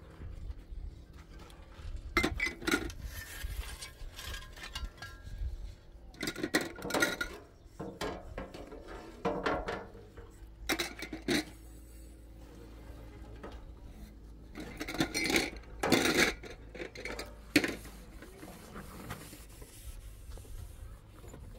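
Bouts of scraping and clattering of hard objects, several seconds apart, over a steady low rumble.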